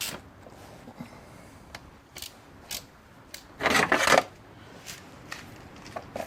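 Scattered clicks and knocks of hand tools and engine parts being handled while an ignition coil rail is fitted, with a louder rattling burst about halfway through; the engine is not running.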